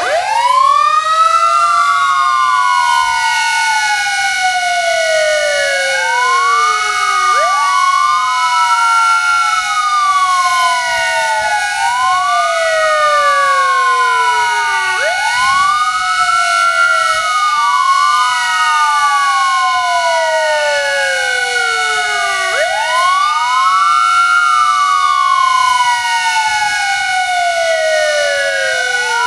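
Sirens sounding together: a steady held siren howl under the electronic sirens of fire engines wailing, each sweep rising quickly and then falling slowly over several seconds, two of them overlapping out of step.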